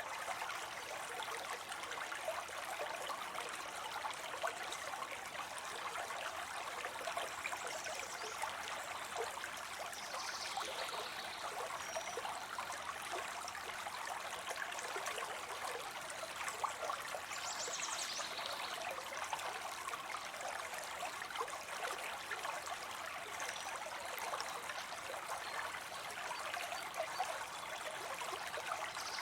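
Water falling into a pond: a steady splashing rush that never lets up, with a few faint high chirps now and then.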